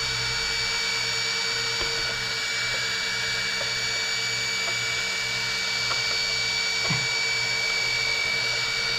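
Small electric cooling fans running steadily: the ESC fan and two motor heatsink fans on an RC car, a constant whine over a low hum. A few faint knocks come through about two and seven seconds in.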